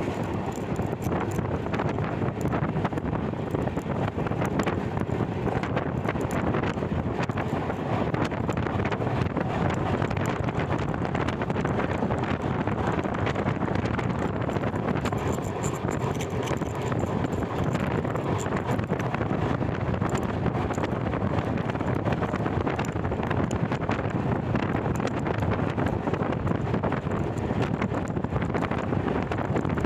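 Wind rushing over a microphone held out of a moving passenger train, mixed with the train's steady running noise on the track.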